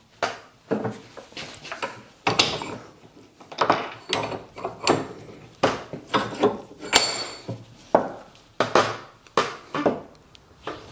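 Irregular metal-on-metal clanks and knocks, about two a second, from a bench vise and steel tools being worked while pressing a prop shaft universal joint together. One knock about seven seconds in rings briefly.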